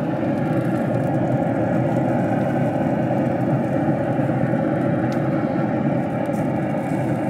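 Traeger pellet grill's fan and fire running: a steady whooshing rumble with a faint steady hum under it.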